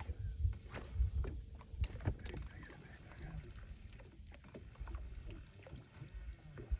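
Small fishing boat on the water: an uneven low rumble with scattered light knocks and clicks.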